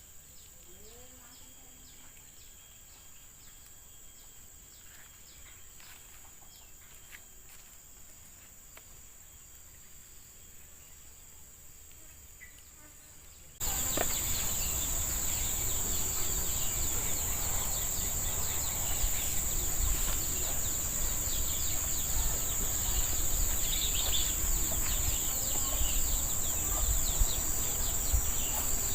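Insects droning in a steady high-pitched chorus, faint at first. About halfway through it jumps suddenly much louder, with a noisy hiss underneath.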